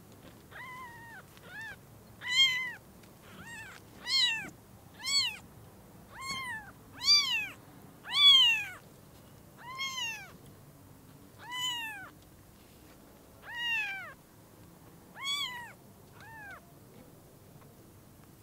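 Newborn kitten mewing, high-pitched and repeated: about fifteen short mews, each rising and then falling in pitch, roughly one a second.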